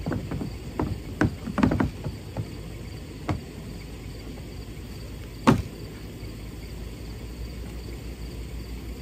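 Knocks and light rattling from hands handling a plastic kayak and its loose fittings: a quick run of taps in the first two seconds, another about three seconds in, and one sharp knock about five and a half seconds in.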